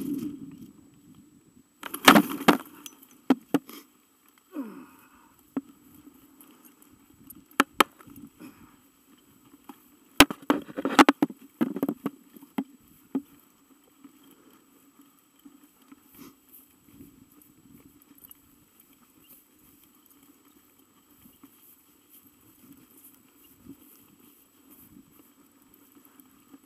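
Wind rush on the microphone dies away right at the start as the landed hang glider comes to rest. Then come scattered knocks and rattles of the glider's frame and harness gear on the ground, loudest about two seconds in and again around ten to twelve seconds in, over a faint steady hum.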